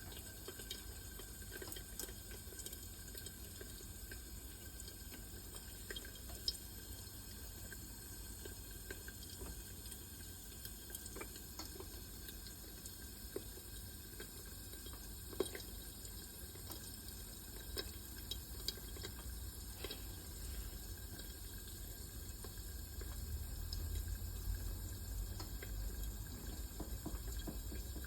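Popcorn kernels heating in a pan: a steady faint hiss and low rumble, with single scattered pops and ticks well apart, the rumble growing louder near the end. The sparse popping marks the start of popping, before the kernels burst in quick succession.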